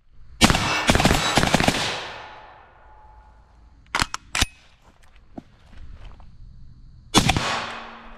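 FN SCAR 16S short-barreled 5.56 rifle fired in fast semi-automatic strings: a rapid run of shots about half a second in, a quick pair around four seconds, and another rapid string near the end, the reports trailing off in echo.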